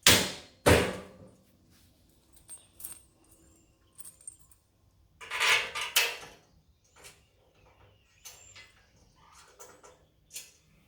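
Two loud metallic knocks, then scattered small clinks and a rattling scrape about five seconds in, as metal bolts, tools and grab-bar parts are handled and fitted.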